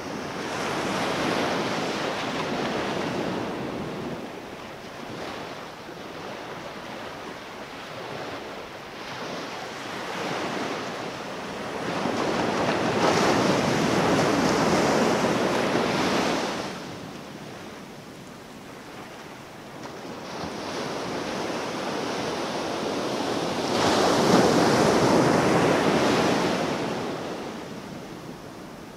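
Pacific Ocean surf: waves breaking on a beach in slow surges, each swelling up and falling away. The biggest breakers come near the start, about halfway through and near the end.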